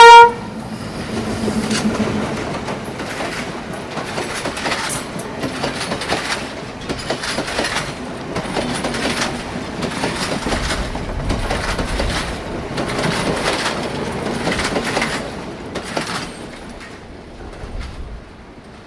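A train passing close by, its wheels clattering over the rail joints in a repeating rhythm, fading away after about 16 seconds. The tail of its horn cuts off right at the start.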